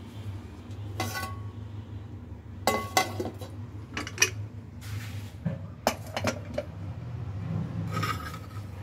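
Aluminium cookware being handled: lids and pots knocking and clinking together as a pressure cooker is opened. Several sharp metal knocks, some ringing briefly, over a steady low hum.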